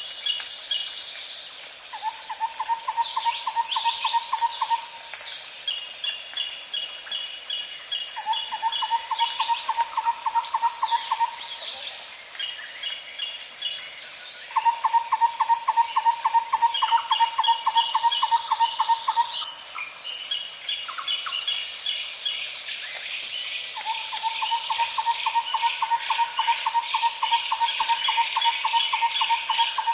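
A chorus of birds and insects: a steady high-pitched insect drone, four evenly pulsed trills of two to five seconds each, and many quick runs of higher chirps.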